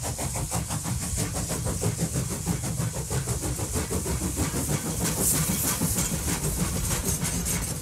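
Train running on the rails: a steady rumble and hiss with a fast, uneven rattle.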